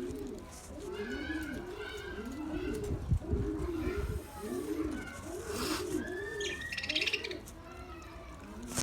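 Pigeons cooing over and over, about two low arched coos a second, with higher budgerigar chirps and chatter over them and a harsher squawk a little past the middle.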